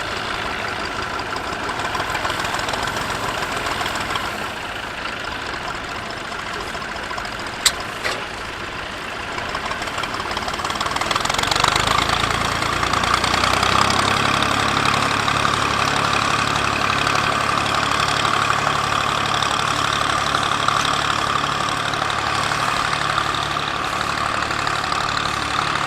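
Vintage Massey Ferguson 135 tractor engine running steadily. It grows louder a little before halfway, with a steadier, deeper engine note, and there is a single sharp click about a third of the way in.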